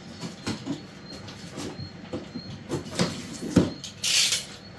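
A cardboard box being unpacked by hand: scattered light knocks, scrapes and clicks of handling, then a short tearing sound about four seconds in.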